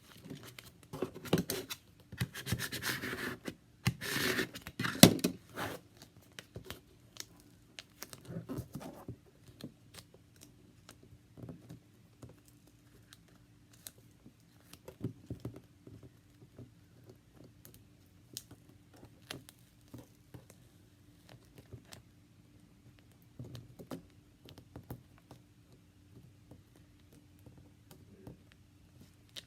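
Transfer tape and cut-out gill decals being handled and pressed onto the cup: scratching, crinkling and peeling, busiest in the first six seconds, then only scattered faint taps over a faint steady hum.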